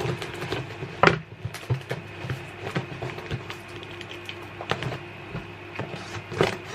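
Scattered light knocks and clicks of objects being handled, the sharpest about a second in and again near the end, over a faint steady hum.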